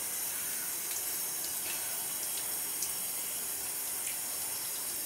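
Bathroom sink tap running in a steady stream.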